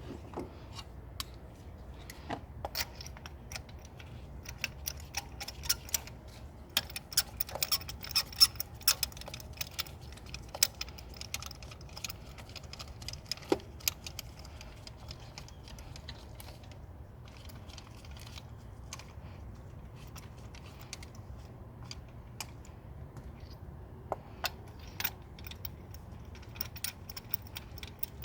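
Scattered sharp metallic clicks and clinks of hand tools and parts being handled during work on a car engine, thickest for a few seconds about a quarter of the way in, over a low steady hum.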